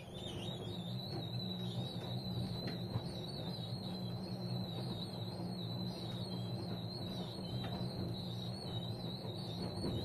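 AEG Öko-Lavamat front-loading washing machine tumbling its wash load: the drum motor starts up and runs with a steady high whine that wavers slightly, over a low hum.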